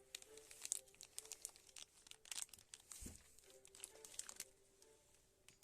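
Faint, irregular crinkling of a plastic biscuit wrapper being handled, with a soft thump about three seconds in.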